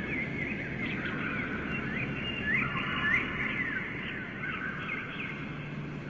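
Several small birds chirping and twittering in quick, overlapping rising and falling notes, over a steady low background rumble.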